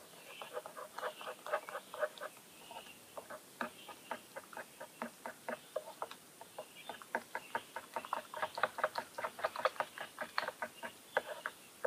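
A spoon stirring noodles in a small metal pot, clicking and scraping against the pot's sides in a quick, uneven rhythm of several strokes a second that speeds up about halfway through.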